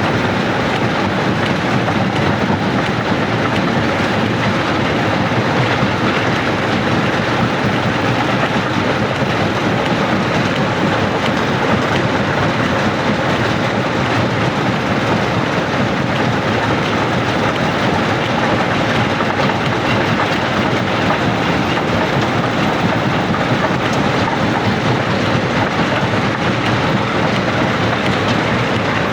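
Rock crusher running steadily, stone being crushed and ground in a continuous, dense clatter with no pauses.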